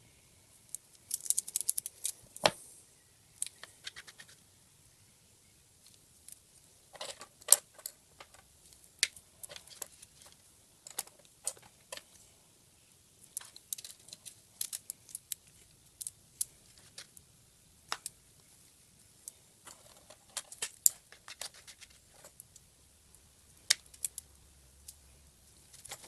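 Small plastic parts being handled on a workbench: scattered, irregular light clicks and taps, with a quick run of clicks about two seconds in.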